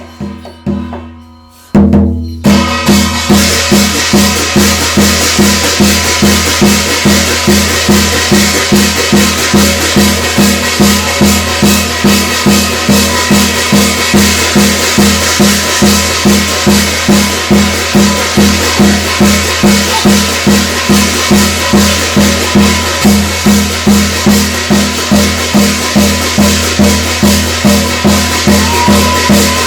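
Korean shamanic gut ritual music: a drum beaten in a fast, steady rhythm with a bright, dense percussion wash over it. It breaks off briefly just after the start and comes straight back in. Near the end a high note slides up and falls away.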